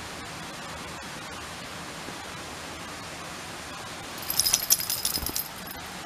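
Steady outdoor hiss, then the metal fittings on a dog's collar jingle for about a second and a half near the end as the dog moves off.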